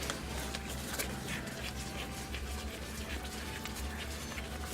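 Beer gravy simmering in a pan on the stove: faint scattered pops over a steady low hum.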